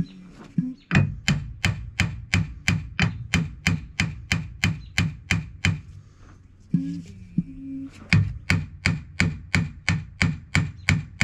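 A hand tool working a gear puller to draw the drive gear off an air compressor's shaft, making sharp metallic clicks at a steady four or so a second. The clicks stop for about two seconds in the middle, then start again.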